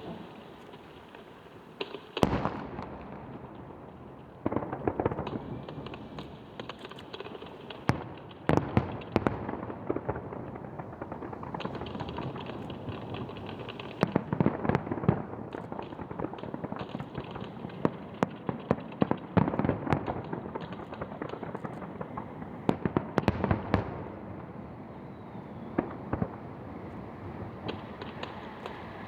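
Aerial fireworks going off in a rapid barrage: a steady dense crackle with many sharp bangs, and louder booms about two seconds in and again around the middle and near the three-quarter mark.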